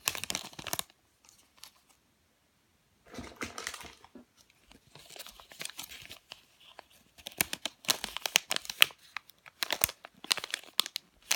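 Squishy toy packaging being handled and pulled open: crackly crinkling and tearing in irregular bursts. There is a quiet gap a second or so in, and near-continuous rustling through the second half.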